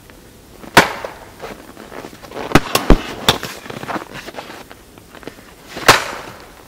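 A series of sharp, irregularly spaced cracks and knocks, the loudest about a second in and again near the end.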